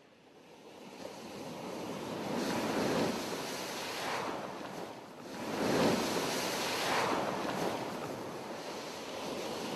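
Sea waves breaking and washing up a beach, fading in from near silence, with the surf swelling and ebbing in surges.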